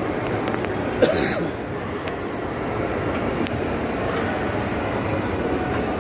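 Steady hubbub of a busy indoor shopping mall, with a short, sharp hiss about a second in.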